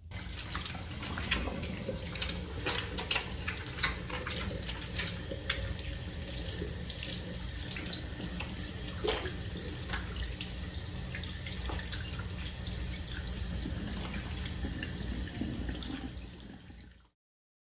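Running water splashing steadily with a scatter of sharp crackles, stopping abruptly near the end.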